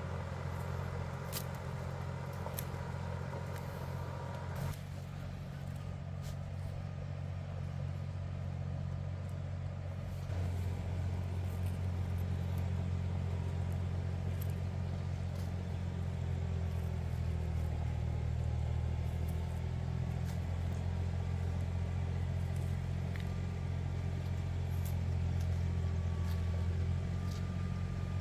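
An engine running steadily with a low hum, a little louder from about ten seconds in.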